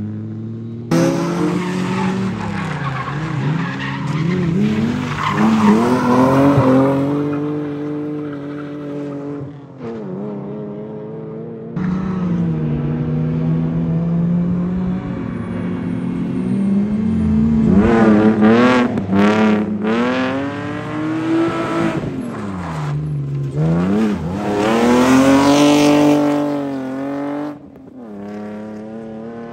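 Rally car engines revving hard, the pitch climbing through each gear and dropping sharply on lifts and shifts, with tyre squeal as the cars are driven on a test stage. The sound changes abruptly a couple of times, as from one car or pass to another.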